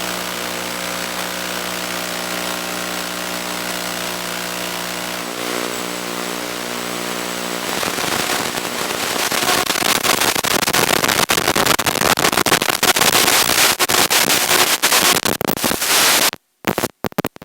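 A steady electrical buzz, then crackling static from about eight seconds in that grows louder and cuts in and out near the end.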